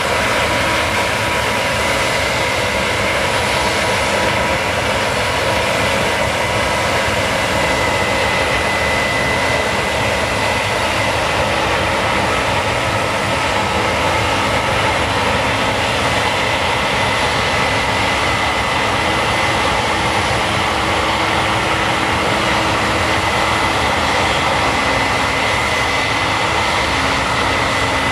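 Case combine harvester running steadily as it harvests barley, a constant mechanical din with a high steady whine above it.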